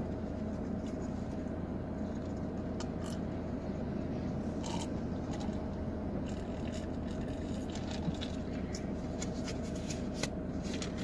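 Steady low hum inside a stopped car's cabin, with scattered small clicks, scrapes and rustles as a paper cup is handled and sipped from, more frequent in the second half.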